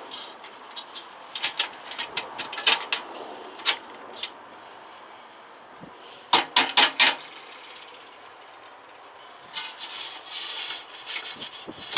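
Scattered clicks and knocks, with a quick run of four loud knocks around the middle and a scraping rub near the end; no steady motor hum.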